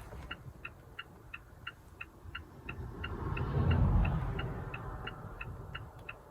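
Car's flasher relay clicking steadily, about three clicks a second: the indicator lights are on. A low vehicle rumble swells up and fades away midway.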